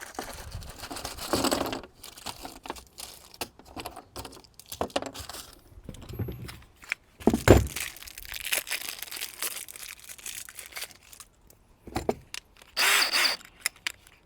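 Plastic packaging rustling and tearing as a kit of small plastic poultry water nipples is opened and handled, with irregular clicks of the parts, a single loud knock about halfway through and a brief rattle near the end.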